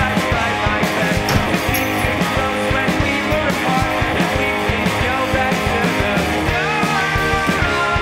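Rock music with guitar and a steady drum beat. A high line slides up in pitch near the end.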